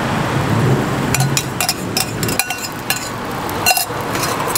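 Metal spoon clinking against a stainless steel cup while sliced bananas and egg are stirred together: a run of quick, ringing clinks, then one louder clink near the end.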